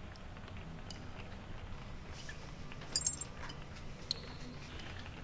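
Low steady hum with scattered small clicks and taps: a short cluster of clicks about three seconds in, and one sharp click with a brief high tone a second later.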